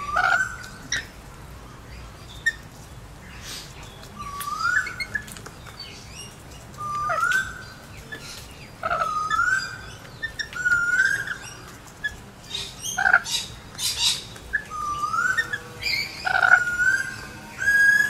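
Rainbow lorikeets calling with short rising, whistled notes that repeat every second or two, while sharp clicks come from their beaks tapping the feeding cup.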